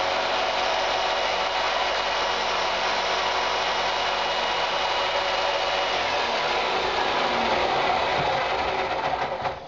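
Bench-mounted power saw running steadily while cutting off a small piece of wood, then stopping near the end.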